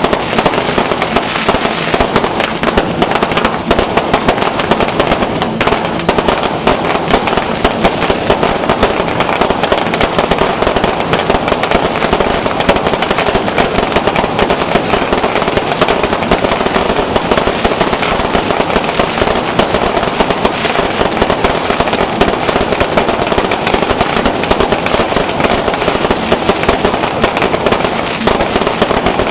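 Fireworks and firecrackers going off in a dense, continuous barrage of rapid bangs and crackles, without a break.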